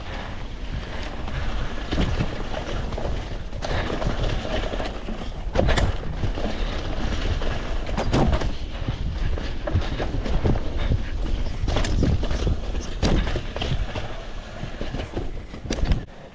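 Cannondale Habit 3 full-suspension mountain bike riding fast down a wet dirt trail. Wind rumbles on the camera microphone, tyres hiss through mud, and sharp clanks and rattles come from the bike every second or two as it hits bumps.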